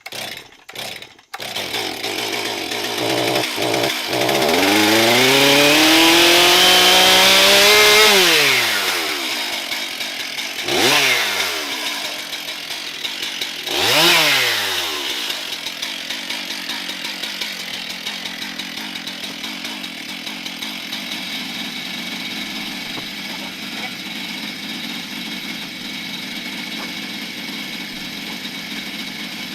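Two-stroke chainsaw engine running up: it climbs to full throttle and holds for a few seconds, drops back, is blipped twice more, then settles into a steady idle.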